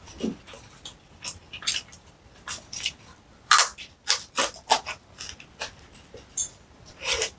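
Close-up eating sounds of a person biting and chewing spicy green onion kimchi (pa-kimchi): a run of short, irregular wet smacks and crunches, several a second, loudest about halfway through and again near the end.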